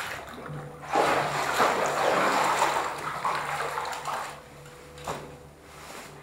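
Water splashing and sloshing as a person in waders moves through knee-deep water in a flooded cellar and steps out onto the stairs. It is loudest for a couple of seconds starting about a second in, then dies down.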